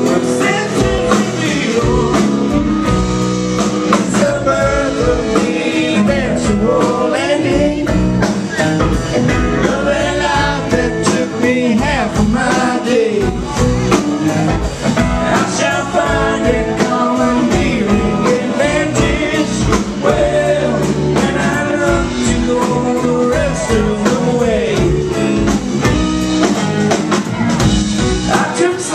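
Live rock band playing a song, with a man singing lead over acoustic and electric guitars, bass and drums, heard loud and full through a handheld camera's microphone in the audience.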